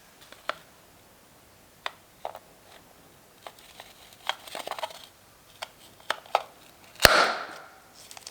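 A mini balloon popping with one sharp pop about seven seconds in and a short noisy tail, after a scatter of small clicks and taps.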